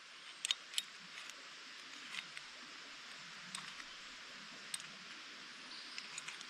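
A few scattered sharp clicks and light knocks, irregularly spaced, over a steady hiss.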